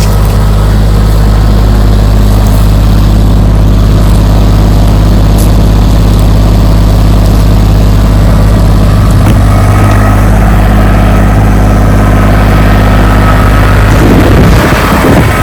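Farm tractor engine running steadily close by, a loud even drone. Near the end its steady note breaks up into a rougher, changing sound.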